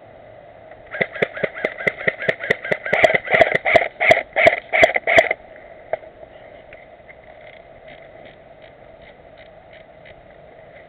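Airsoft guns firing: a quick string of sharp shots, about five a second for roughly four seconds, then fainter scattered shots.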